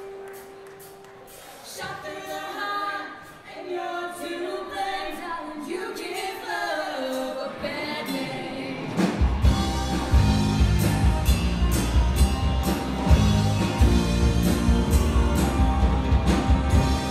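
Live all-female rock band opening a song: a held note briefly, then voices singing in harmony with little accompaniment, and about nine seconds in the drums, bass and guitars come in together at full volume.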